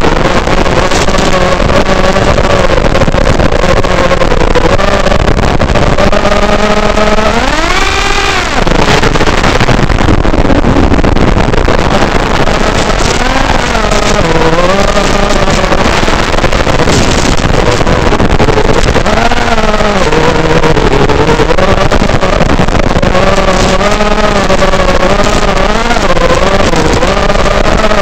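Realacc X210 racing quadcopter's brushless motors buzzing loudly. The pitch rises and falls with the throttle, with one sharp climb about eight seconds in.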